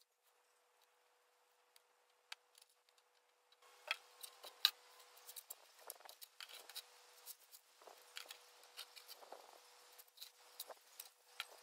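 Faint, irregular scratching and clicking of a rake dragging dry leaves across gravel, starting about three and a half seconds in.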